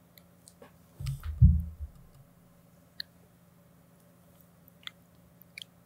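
A few scattered short, sharp clicks over a steady low electrical hum, with a low thump about a second in that is the loudest sound.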